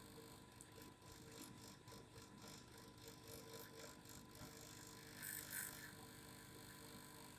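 Faint steady vibrating hum from a small vibrating device, with light, quick ticking in the first half and a short brighter hiss a little past five seconds in.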